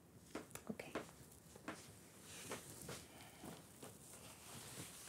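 Faint footsteps and clothing rustling as two people walk slowly together, with a scattering of soft taps.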